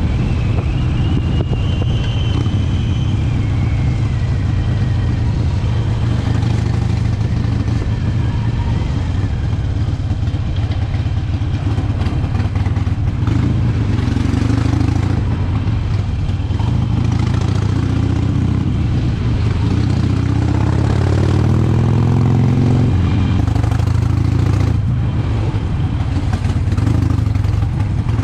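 Harley-Davidson V-twin motorcycle engine running under way, loud and steady, its pitch rising as it accelerates about halfway through and again near the end.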